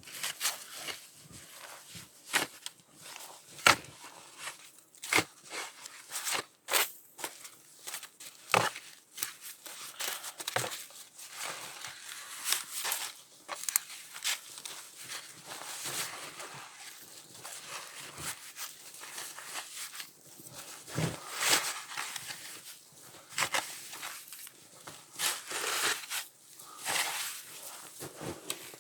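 Irregular crunching, snapping and rustling at close quarters, the sounds of moving about in snow and handling dry sticks to start a fire.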